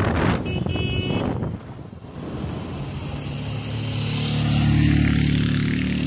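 Road vehicle's engine running, a low steady hum that swells to its loudest about five seconds in and then eases a little. At the start, wind rushes over the microphone of the moving vehicle.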